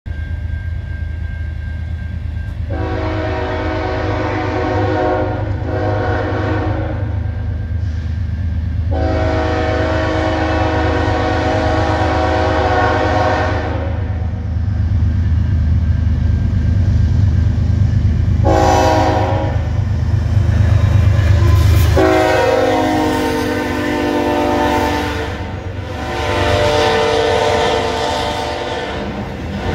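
Freight train's diesel locomotives approaching and passing, sounding a multi-chime air horn in long blasts with one short blast, the long-long-short-long pattern used for a road crossing. Under the horn runs a low diesel rumble that drops away about two-thirds of the way through as the locomotives go by, leaving the rolling noise of the freight cars.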